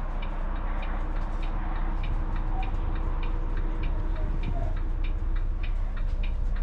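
A stationary coach's steady low running hum, with a quick, even ticking about three times a second over it.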